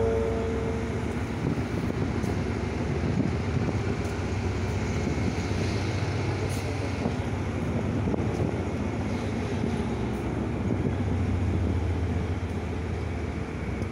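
Passenger train coach rolling slowly out of a station: a steady low rumble of the running gear and locomotive, with a few faint clicks from the wheels on the rails. The last note of a descending chime ends in the first second.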